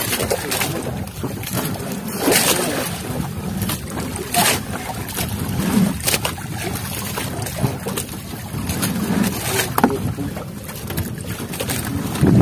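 A small fishing boat in rough sea: wind on the microphone and water splashing continuously, with a few sharper splashes or knocks.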